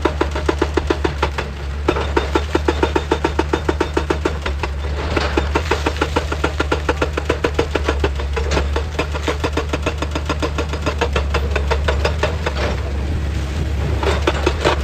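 Excavator running with a steady low engine hum and a rapid, even pounding of about ten strokes a second that eases off briefly a few times.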